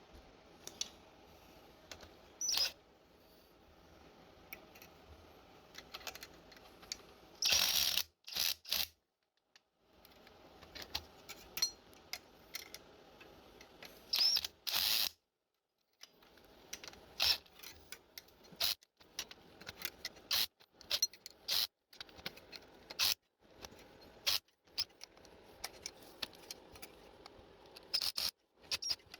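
Irregular metallic clicks and clinks of hand tools working the bolts of a motorized bike's rear sprocket, with a few louder clanks along the way.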